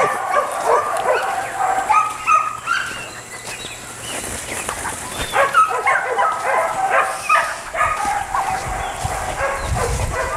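Dogs barking and yipping in a run of short, repeated calls, easing off for a moment a few seconds in and then picking up again.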